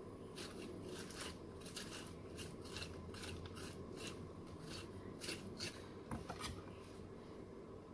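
Faint repeated scraping strokes, about two or three a second, as the seeds are scraped out of a cucumber; the strokes stop about three quarters of the way through.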